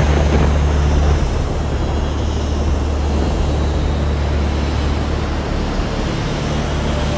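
A low, steady droning rumble with a wash of hissing noise over it. A louder rush of noise dies away in the first second.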